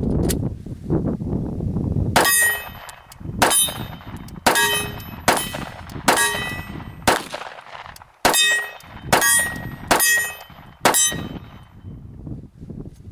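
Ten shots from a Glock 26 Gen 4 9mm pistol, roughly one a second, emptying a 10-round magazine. Each hit is followed by a bright metallic ring, as of rounds striking a steel target.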